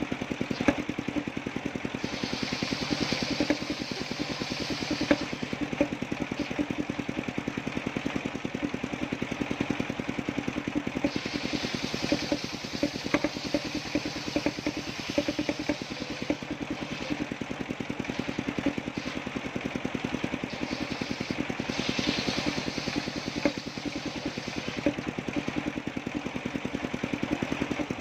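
Engine of a homemade circular-saw sawmill running steadily with a fast, even beat, while a higher hiss swells and fades three times as the blade works through the coconut palm trunk.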